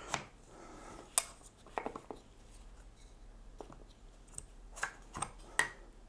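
Wooden puzzle-box parts being handled, a scattering of light clicks and taps of wood on wood at irregular intervals, with several close together in the last couple of seconds.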